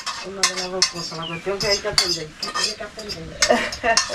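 A metal spoon stirring chicken frying with garlic in a metal pot: repeated sharp scrapes and clinks against the pot, over a light sizzle.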